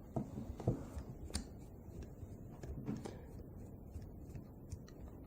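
Faint, scattered clicks and light knocks of small hand tools working at little bolts, about a dozen in all, with a slightly louder knock near the start.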